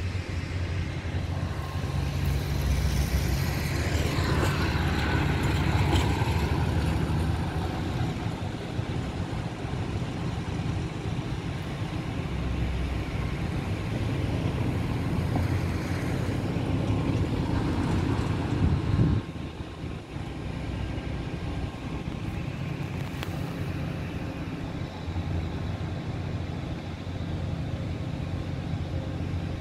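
A motor vehicle engine running, with a steady low hum. Its pitch rises and falls over the first several seconds, and the loudness drops suddenly about two-thirds of the way through before the hum carries on more quietly.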